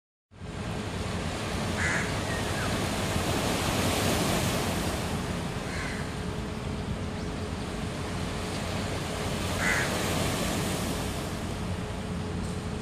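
Steady wash of small sea waves against a rocky shore, with a bird giving three short calls about four seconds apart.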